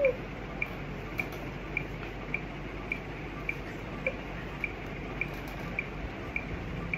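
Phone countdown timer ticking, short bright ticks evenly spaced a little under two a second, over a low steady room hum.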